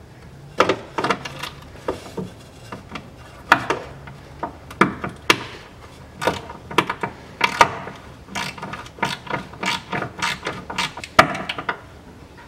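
A self-tapping roofing screw turned by hand with a Phillips screwdriver on a flexible extension, cutting into the nylon cover cap of a Haldex coupling oil filter: a run of irregular clicks and scrapes.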